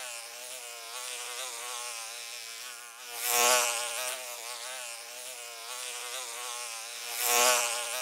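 Many flies buzzing together in a dense, wavering drone, with louder rushing swells about three and a half seconds in and again near the end.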